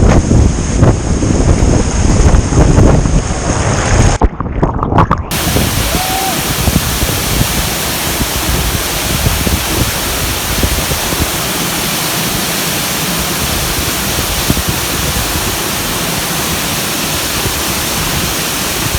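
Gusty wind buffeting the microphone for about the first four seconds. After a short break, the steady, even rush of a high waterfall's falling water.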